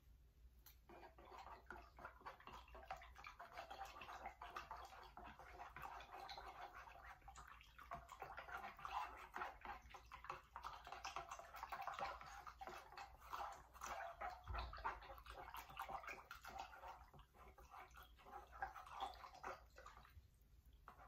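A hand swishing and stirring water in a metal cooking pot, mixing semi-permanent hair dye into it: faint, steady splashing that starts about a second in and stops near the end.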